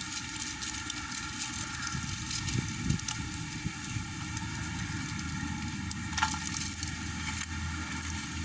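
Strong wind on the microphone: a steady low buffeting noise, with a couple of sharp clicks about three and six seconds in.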